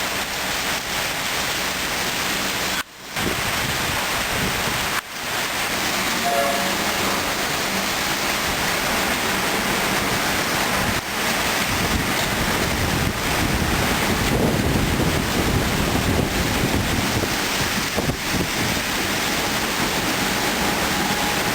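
Suburban electric train moving through the station: a steady rushing rumble with wind noise on the microphone, the level dropping out briefly about three and five seconds in.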